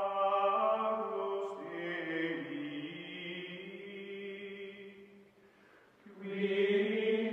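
Music of voices chanting long held notes, fading out about five seconds in and swelling back up a second later.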